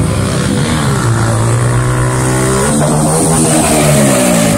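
Motorcycle engine revving hard, its pitch climbing and holding high, then dropping sharply near the end.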